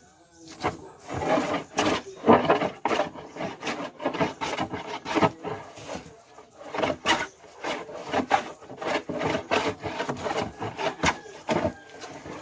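Vintage hand plane shaving wood in repeated, irregular scraping strokes.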